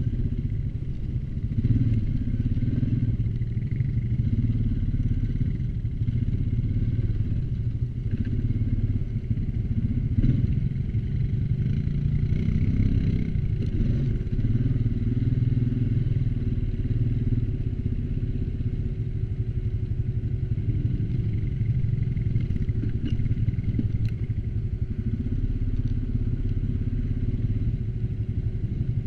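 ATV engine running steadily under way, easing and picking up a little with the throttle, with a few short knocks and rattles.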